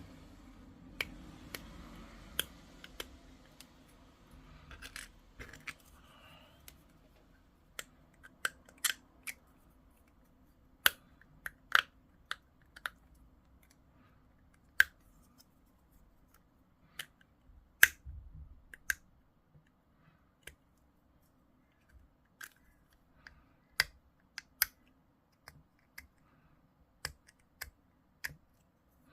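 Hobby sprue cutters snipping plastic miniature parts, with small clicks and taps as the pieces are handled: scattered sharp clicks at irregular intervals.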